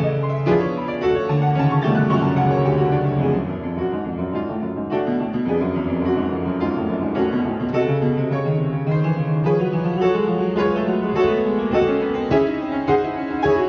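Young Chang upright piano being played: a busy passage of many quick notes in both hands, going on without a break.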